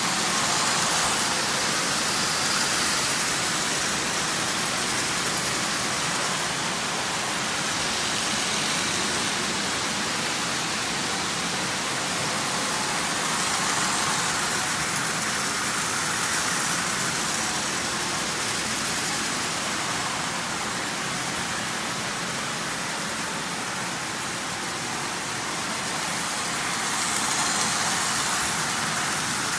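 Several Lionel O-gauge model trains running together on three-rail tinplate track: a steady whirring rattle of electric motors and metal wheels on the rails, swelling now and then as a train passes close.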